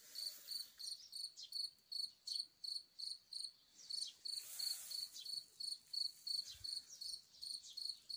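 Field cricket singing: a steady run of short, high chirps, about three a second.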